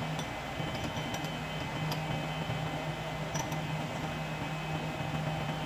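Steady mechanical hum of a machine running, with a few light metallic clicks as a drill bit is fitted into a drill press chuck.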